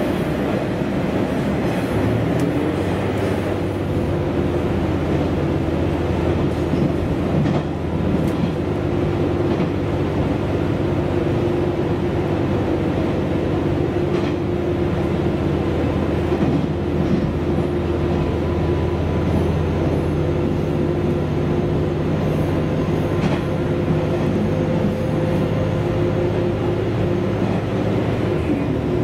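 Diesel railcar heard from inside the passenger cabin while running at steady speed: a constant engine drone with wheel and rail noise and a few faint clicks.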